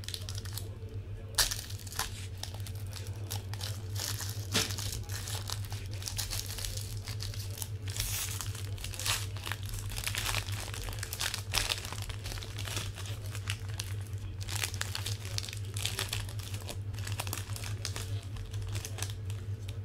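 Foil wrapping on a box of football trading cards being crinkled and torn open by hand, an irregular run of crackles with one sharper crack about a second and a half in.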